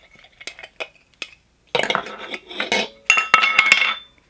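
Metal Funko Soda cans being handled: a few sharp clinks, then a second and more of clattering and scraping of tin against tin, with a brief metallic ringing near the end.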